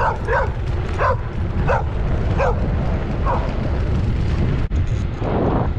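A dog barking, about six barks in the first three and a half seconds, growing fainter and further apart, over a steady low rumble of wind and bicycle tyres on gravel.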